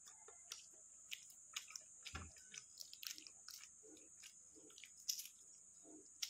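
Faint, irregular crackling and clicking of a balut's eggshell being picked off by fingers, with quiet chewing in between.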